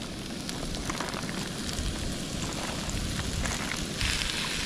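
Stir-fry beef sizzling and crackling in a hot pan, the sizzle getting louder about four seconds in.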